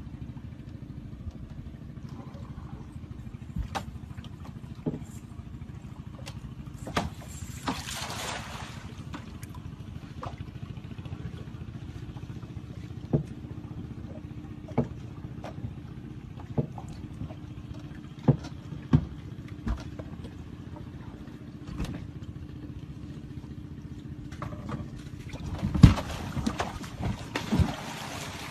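A steady engine drone, with scattered sharp knocks and two spells of rushing noise, about eight seconds in and again near the end, where the loudest knock falls.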